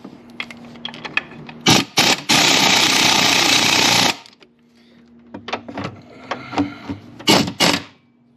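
Impact wrench hammering a transmission mount bolt in for a burst of about two seconds, with clicks and knocks of tools and parts before and after.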